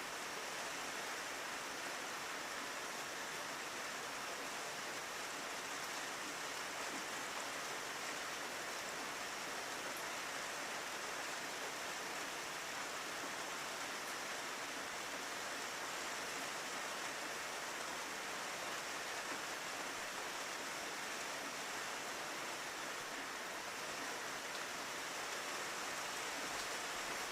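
Steady rain falling on a window, an even hiss with a few faint drop ticks.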